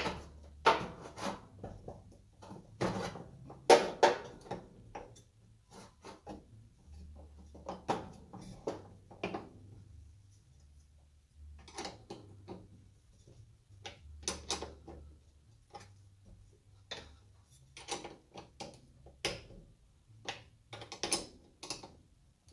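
Irregular metallic clinks, knocks and clatter of hand tools being worked and set down, the loudest in the first four seconds.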